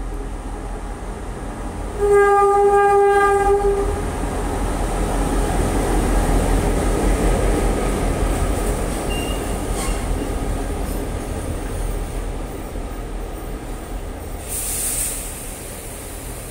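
Queensland Rail 1720 class diesel locomotive sounding one horn blast of about two seconds as it pulls into the platform, followed by the locomotive and its train of heritage carriages rumbling slowly past. A short hiss comes near the end.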